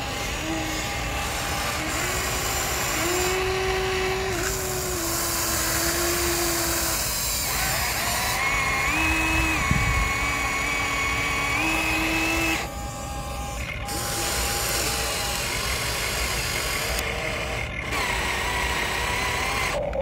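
Huina remote-control toy excavator's small electric motors whining as the boom, arm and bucket are worked. The pitch steps up and down every second or two as different motions start and stop, with a couple of short quieter pauses in the second half.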